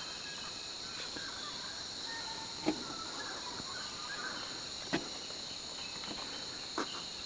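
Rainforest dawn chorus: a steady, high insect drone with scattered faint bird calls. Three short clicks stand out, about a third, two thirds and nine tenths of the way through.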